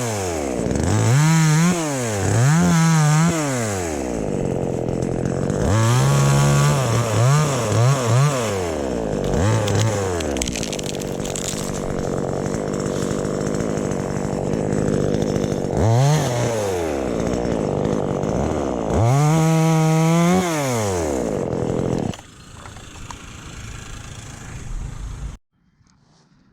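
Chainsaw engine revved up and down again and again, with a longer stretch held at high speed in the middle; it drops away near the end and then cuts off.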